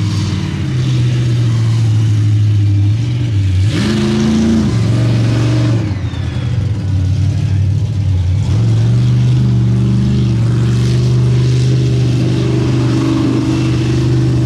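Blown (supercharged) mega truck engine running hard under load, a steady engine note that climbs briefly in pitch about four seconds in, eases off for a couple of seconds, then holds high again.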